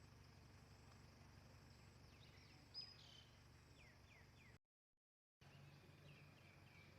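Near silence: faint outdoor background hum with a few faint bird chirps. The sound cuts out completely for nearly a second midway.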